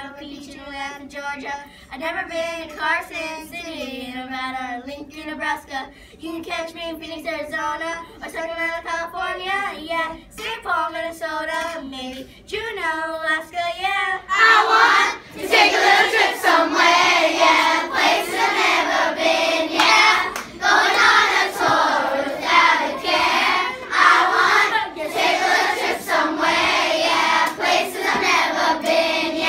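A child sings alone, unaccompanied. About halfway through, a whole class of children joins in, singing together much more loudly.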